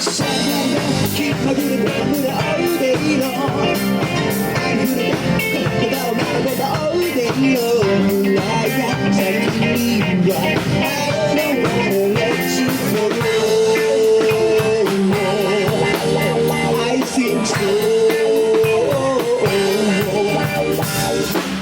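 Live band playing a rock-pop love song with guitar and drum kit. Long held melody notes come in over the beat in the second half.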